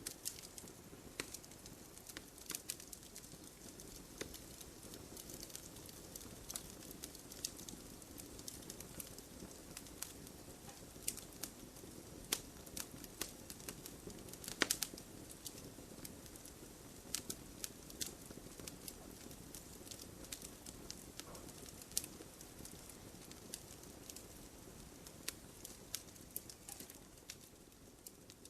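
Wood campfire crackling: irregular sharp pops and snaps, one louder pop about halfway through, over a steady low hiss of the burning fire.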